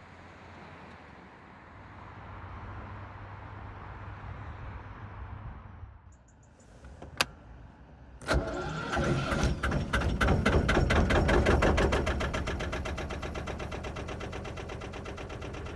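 A narrowboat's diesel engine being started at the push-button panel. A click comes about seven seconds in, and the engine catches just after eight seconds. It runs loud for a few seconds with a fast, even beat, then settles to a steadier idle.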